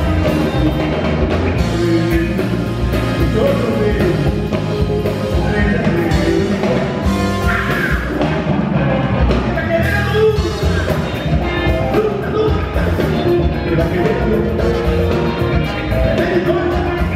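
Live soul-funk band playing: electric guitar, a horn section of saxophones, trumpet and trombone, bass and drums, with a man singing lead over it.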